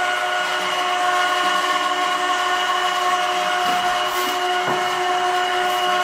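Homemade screw oil press running steadily while pressing sunflower seeds: a constant mechanical whine of its drive, with several held tones and no change in speed.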